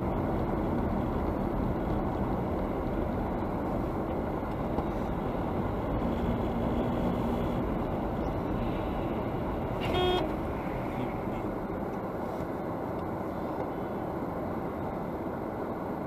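Steady road and engine noise from a moving car, heard from inside it, with a short car-horn honk about ten seconds in.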